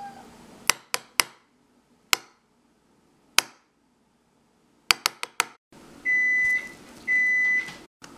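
Several sharp clicks or knocks, some single and some in a quick run, then an electronic appliance beeping: a steady high-pitched tone about half a second long, repeating about once a second from about six seconds in.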